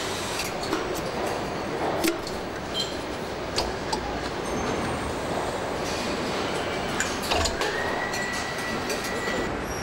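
Engine assembly plant ambience: a steady hum and rumble of machinery with scattered sharp metallic clicks and clanks. Near the end a high, steady whine sounds for about two seconds.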